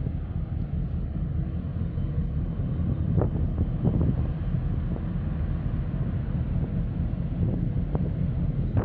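Steady low rumble of ship engines from a large container ship passing close by with a tugboat alongside.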